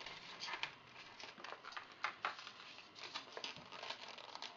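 Faint, irregular crinkling and small clicks of plastic packaging as a new laptop memory module is taken out of it.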